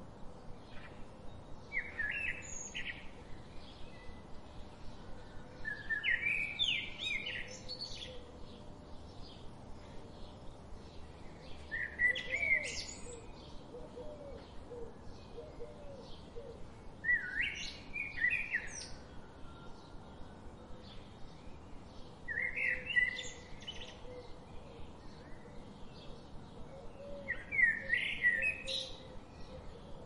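Red-whiskered bulbul singing: a short, bright warbled phrase about every five seconds, over a steady faint ticking of two or three notes a second.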